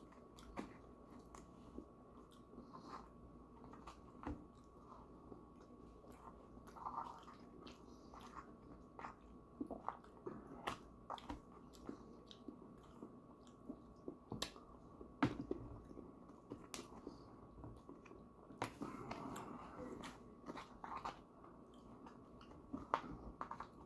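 Quiet chewing, with scattered small clicks and scrapes as a fork and fingers pick apart the pastry crust of a mincemeat pie in a foil pie tin. A faint steady hum runs underneath.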